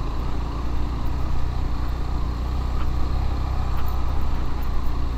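Motorcycle engine running steadily while the bike is ridden over a rough, unpaved stony track, with a few faint clicks now and then.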